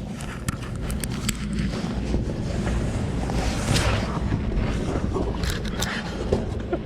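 Wind buffeting the microphone as a steady low rumble, with scattered light knocks and scrapes of handling.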